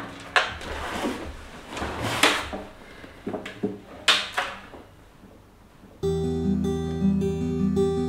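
A few short scrapes and knocks of handling, then about six seconds in an acoustic guitar starts abruptly, fingerpicking a repeating pattern over held low notes.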